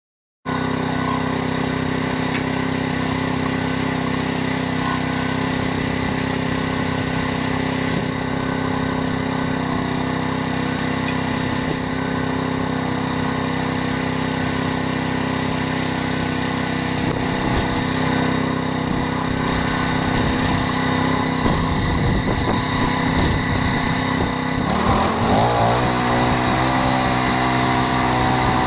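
Portable bandsaw mill's petrol engine running steadily as its band blade saws through a green ironbark log. Near the end the engine note shifts and settles at a new pitch.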